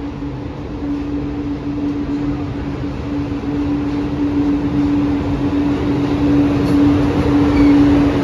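A freight train headed by two ÖBB electric locomotives, the lead one a class 1116 Taurus, approaches and draws alongside, growing steadily louder. A steady hum runs through the rumble of the train.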